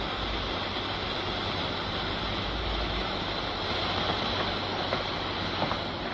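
Steady low rumble and hiss of a ship's background noise under an old film soundtrack. A few light taps come near the end.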